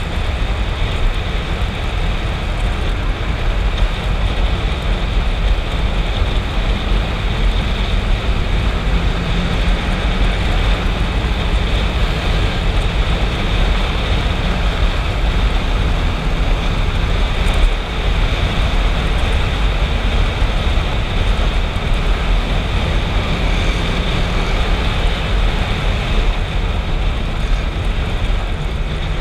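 Motorcycle riding along at steady speed, heard from on the bike: an even rush of wind and road noise with the engine's drone underneath, heaviest in the low end.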